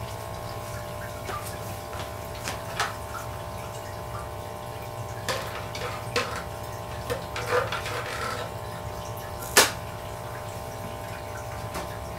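Aquarium air pump humming steadily while the air stone's bubble curtain rises and bubbles. A few short sharp splashes break through, the loudest just before ten seconds in.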